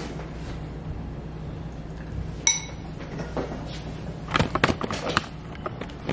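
A low steady hum of room tone. A single ringing clink of tableware about two and a half seconds in, then a quick run of knocks and rubbing as the camera is picked up by hand and carried.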